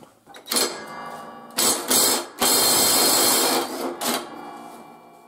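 Cordless impact wrench hammering on the blade bolt of a riding-mower deck: a few short bursts, then a longer run of about a second, then tapering off as the bolt breaks loose. The bolt had copper anti-seize on it and came right off.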